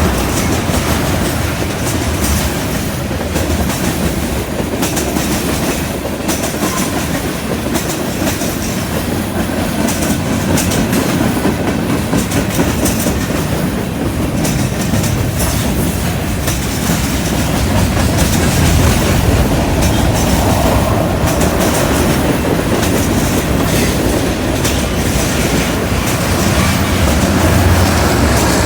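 Freight train cars rolling past: a steady rumble with the wheels clacking over the rail joints.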